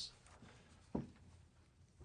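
Quiet hearing-room tone, with one short sound falling in pitch about halfway through.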